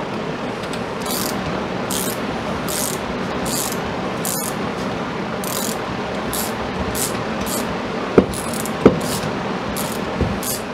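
Hand ratchet clicking in about a dozen short bursts, a little under a second apart, as it turns a pass-through socket to loosen the 18 mm top nut on a coil-spring strut. About eight seconds in come two sharp metal clanks half a second apart, over a steady shop hum.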